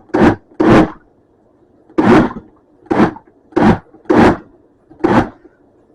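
Vitamix blender pulsed in seven short, irregularly spaced bursts, chopping a chicken and potato soup only briefly so that it stays chunky rather than liquefying.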